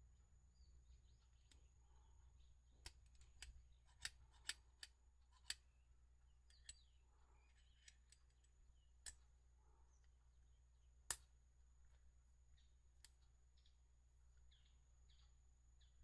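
Sharp clicks from a spoke tension meter and its digital dial gauge being handled, the lever squeezed and released. There are about ten irregular clicks with faint handling rustle between them, the loudest about eleven seconds in.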